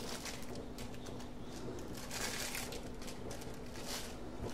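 Thin plastic sheet crinkling in short, irregular rustles as it is handled around a plate, over a faint steady hum.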